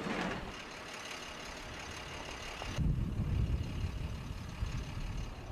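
Utility trucks moving on a snowy street: steady engine and road noise. About three seconds in it changes abruptly to a closer, louder low rumble of a bucket truck's engine running.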